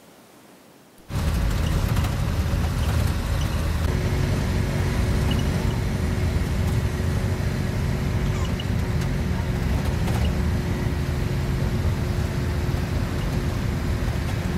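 After about a second of faint quiet, engine and road noise inside a moving vehicle cuts in suddenly: a loud, steady rumble. A steady hum joins it about four seconds in.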